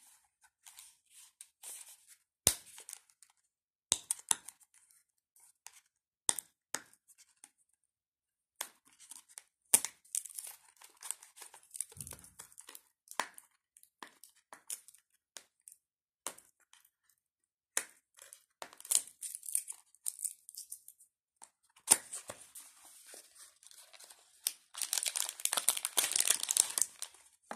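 A small cardboard box being opened by hand and a plastic bag pulled out of it: scattered clicks and short tearing rustles, then a dense crinkling of plastic in the last few seconds.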